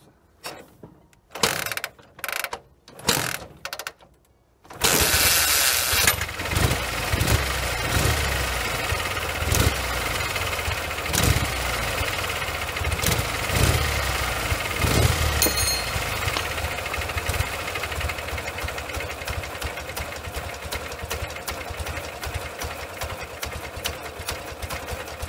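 Ural flat-twin motorcycle engine built from defective parts: a few short separate coughs over the first few seconds, then it catches about five seconds in and runs unevenly with an irregular low pulse, which the owner puts down to gas blowing out from under a spark plug.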